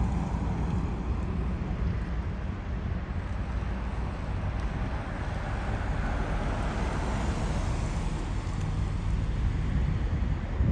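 Road traffic over a steady low engine rumble, with wind buffeting the microphone. A car drives past close by about six seconds in, its tyre noise swelling and fading.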